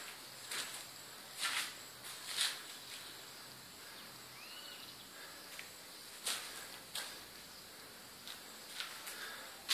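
Footsteps scuffing on a gritty, bare concrete floor, about six irregular steps, over a faint steady background hiss with a thin high tone.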